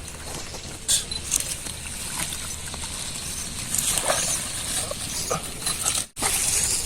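Irregular splashing and patter of water, with scattered small knocks over a low rumble; the sound cuts out for a moment about six seconds in.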